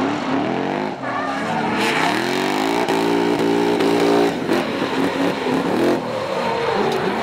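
Two drift cars' engines revving hard in a tandem drift, one of them a BMW E30 running an E39 M5 V8. The pitch sweeps up and falls back again and again, and is held near the top of the revs for a second or so about halfway through.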